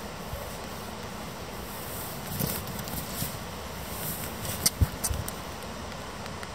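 Railway station ambience: the steady rumble and hiss of an electric passenger train pulling away into the distance, with a few short sharp clicks and knocks, the loudest a pair just before five seconds in.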